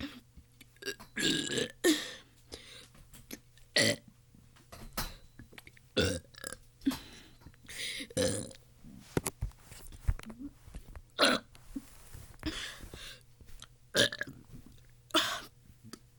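A person burping over and over: a string of short burps about a second apart, some loud, with a longer one near the start.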